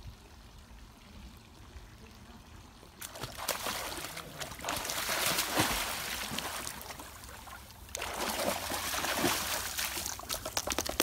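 Pool water splashing and sloshing as a Great Dane dog-paddles, starting about three seconds in and coming in two long bouts.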